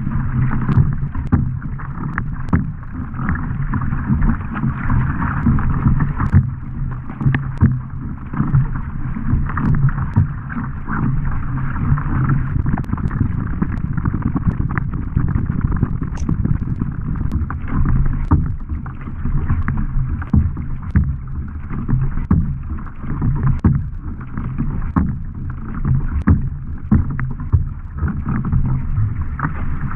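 Kayak paddle strokes splashing into the water on alternate sides, with water rushing along a racing kayak's hull. A steady low rumble runs under the splashes.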